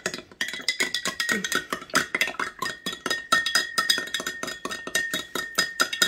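A spoon clinking rapidly against the inside of a glass mason jar while stirring raw honey into pine needle tea, several clinks a second, with the jar ringing between the strikes.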